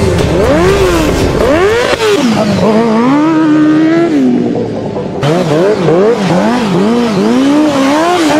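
Sport motorcycle engine revving up and down over and over, a held rise in the first half, then quick repeated blips about twice a second, while the tyre spins and slides on snow.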